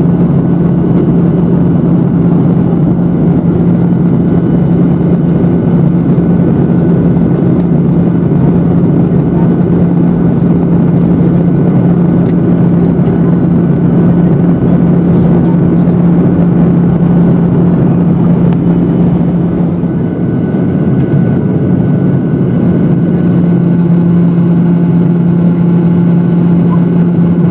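Steady cabin drone of an airliner's jet engine heard from a window seat beside the engine during descent: a loud even rush with a constant low hum that dips briefly about two-thirds of the way through.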